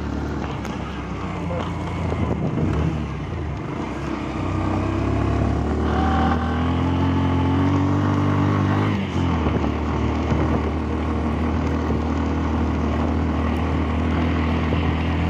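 Off-road vehicle's engine running under load, its pitch climbing for several seconds about a third of the way in, then dropping suddenly as the throttle comes off, before running on steadily.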